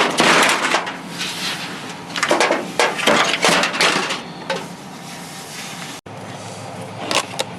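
Clattering and knocking of junk being handled and pulled about, in two loud bouts, the first right at the start and the second about two to four seconds in.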